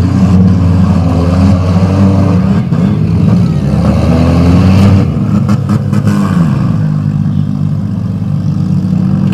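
Several compact four-cylinder derby cars' engines running and revving, rising and falling in pitch, with a few short knocks about five to six seconds in.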